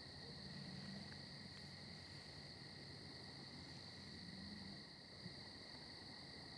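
Crickets chorusing: a faint, steady high-pitched trill that never breaks, with one soft click a little after five seconds in.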